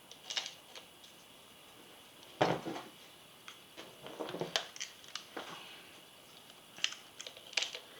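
Light, irregular clicks and taps of small metal parts handled on a workbench as a threaded steel adapter is screwed by hand onto an angle grinder's arbor shaft. One knock about two and a half seconds in is louder than the rest.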